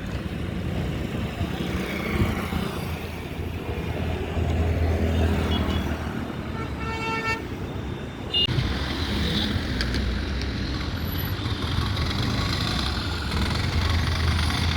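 Highway road traffic with vehicle engines rumbling steadily, and a vehicle horn sounding once, briefly, about seven seconds in. The traffic noise turns suddenly louder and hissier about two-thirds of the way through.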